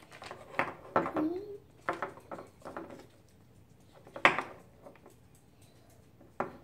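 Small hard-plastic toy shopping baskets knocked and set down on a wooden tabletop: several short clacks spread out, the loudest about four seconds in.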